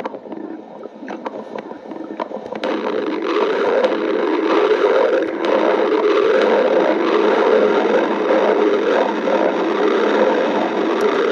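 Stomach growling: scattered faint gurgles at first, then from about two and a half seconds in a loud, continuous rumbling gurgle.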